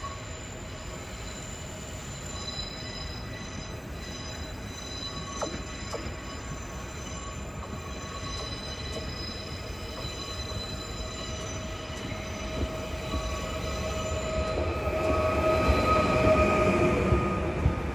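PESA Elf EN76 electric multiple unit approaching at low speed and running past, with a steady high-pitched whine and squeal over the rumble of the wheels. It grows louder as the train draws alongside near the end.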